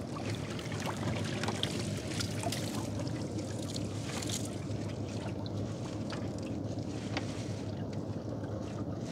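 Small river fishing boat's motor running steadily with a low hum, with water moving around the hull and occasional light clicks and knocks.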